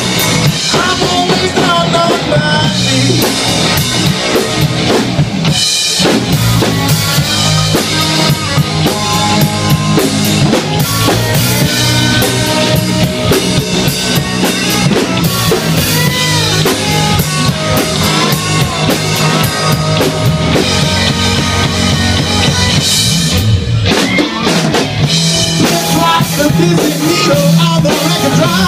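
Live band playing loud amplified rock: electric guitar over bass guitar and a drum kit.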